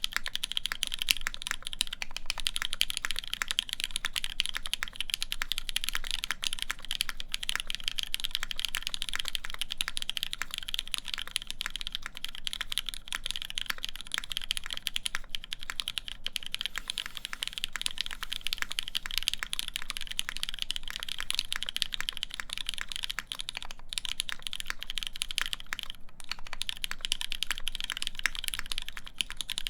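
Continuous fast typing on a Duck Eagle v3 mechanical keyboard with a polycarbonate plate, lubed linear Cherry MX Black switches and Cherry Desko keycaps: a dense stream of keystrokes that starts right at the beginning.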